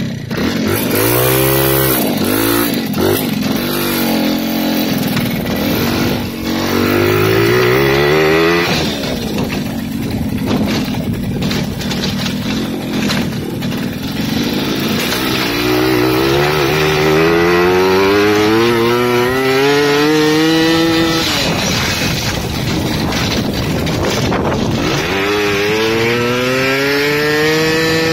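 A Babetta moped's single-cylinder two-stroke engine, bored out to 70 cc and fed by a 19 mm Dellorto carburettor, under way and revving. It climbs in pitch in several long pulls, and each pull drops off suddenly when the throttle is shut.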